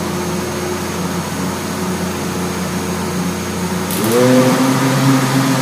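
Countertop blender motor running steadily as it blends a liquid ice-cream base. About four seconds in there is a click and the motor speeds up to a higher, louder pitch.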